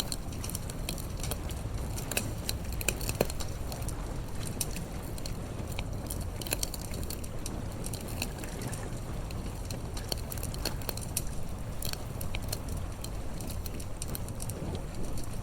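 Wood fire crackling, with frequent irregular pops and snaps over a steady low rumble.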